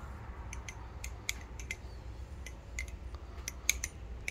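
V2 BB Firefly balisong being flipped: irregular sharp clicks, about a dozen, as the handles swing around the pivot and strike each other. The freshly restored bushing pivot has no tap or play.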